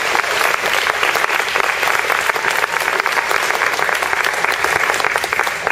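Audience applauding: dense, sustained clapping that dies away near the end.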